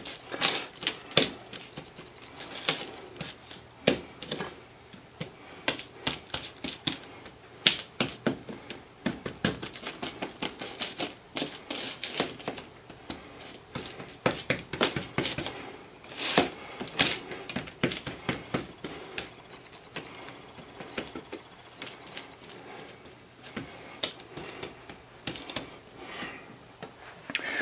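Sticky peanut-butter-coated cornflakes crackling and crunching in irregular clicks, several a second, as a hand presses and spreads them across a metal pizza pan.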